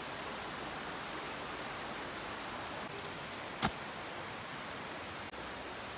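A steady rush of flowing river water with a continuous high-pitched insect drone above it. A single sharp click sounds about three and a half seconds in.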